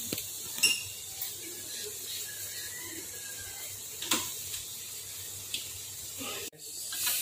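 Chicken stomach in soy sauce simmering in a wok, giving a steady soft hiss, with a few sharp clicks of a metal spoon. The sound cuts out abruptly for a moment about six and a half seconds in.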